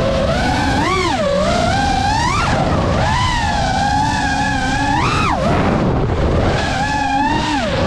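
FPV quadcopter's motors and propellers whining, the pitch rising and falling several times as the throttle is punched and eased, over a steady rushing noise.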